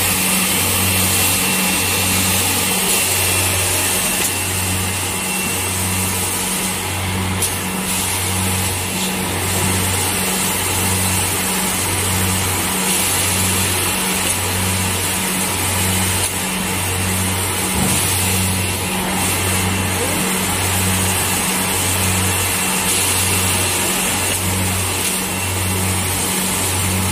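A ZKS-2 granule vacuum loader running, a steady loud rushing whir of its suction as the lance draws granules up the hose. A low hum under it pulses evenly about once a second.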